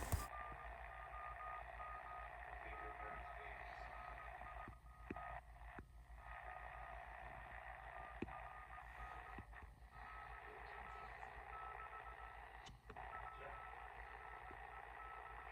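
Faint radio output from a horn speaker: a steady hiss and hum with a thin whistling tone that keeps breaking off and coming back, and a few light clicks.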